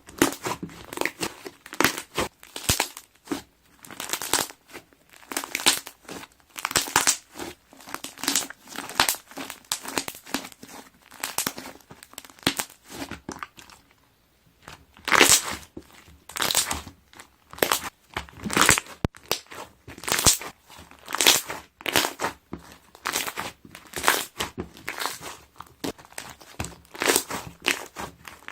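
Slime being pressed and stretched, its trapped air bubbles popping in clusters of sharp crackling clicks, with a brief lull about halfway through.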